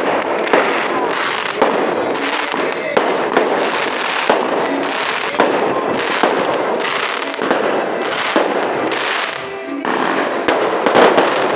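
Fireworks going off: a continuous hissing spray broken by sharp cracks and bangs at irregular intervals, roughly one a second.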